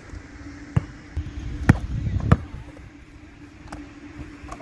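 A basketball bouncing sharply three times, once about a second in and twice more close together in the middle, amid shuffling around them, over a steady low hum.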